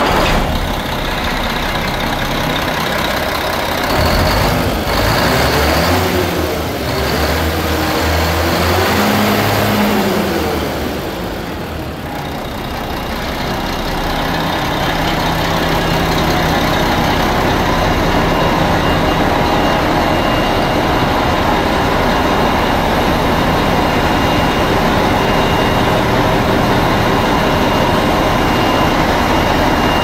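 2000 Mack DM690 concrete mixer truck's diesel engine running, its pitch rising and falling a few times in the first ten seconds, then running steadily.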